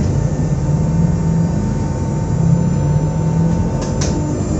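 Z 2N double-deck electric multiple unit standing at the platform, its on-board equipment humming steadily with a few held tones. A sharp click comes about four seconds in.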